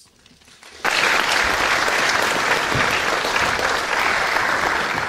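Audience applauding, breaking out suddenly just under a second in and carrying on steadily.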